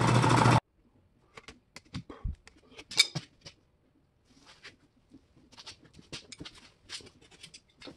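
An old belt-driven electric air compressor running, cut off abruptly about half a second in; then faint, scattered clicks and knocks, the loudest about three seconds in.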